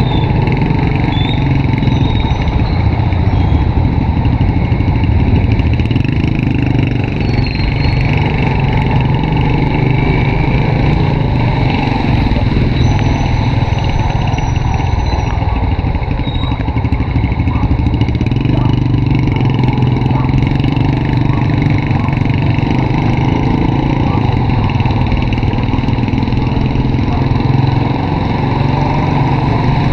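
Honda RSX 110 motorcycle's small single-cylinder four-stroke engine running steadily while riding, with road noise. Near the end the engine pitch rises as it speeds up.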